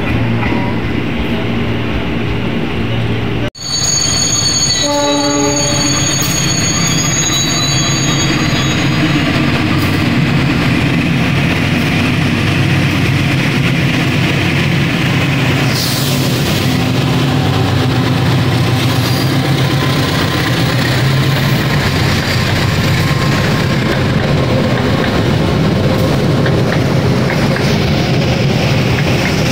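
A diesel-electric locomotive hauls a passenger train through the station with its engine running steadily. A few seconds in there are brief horn toots and a high wheel squeal, and then the coaches roll past with rail clatter.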